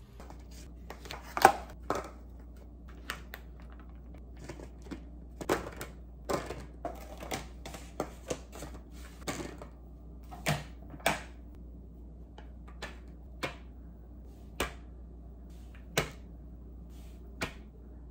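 Irregular clicks and knocks of a spatula and serving spoon tapping against plastic meal-prep containers as cooked chicken pieces and rice are portioned into them.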